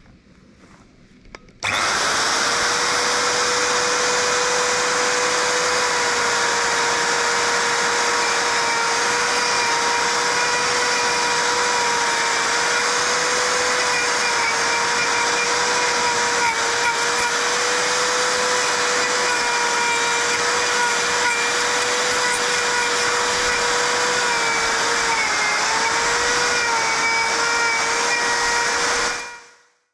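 Electric plunge router (défonceuse) running at full speed as its bit shaves wood off the top of a tree stump: a steady high motor whine that starts abruptly about two seconds in, its pitch sagging slightly now and then as the bit bites into the wood, and stops just before the end.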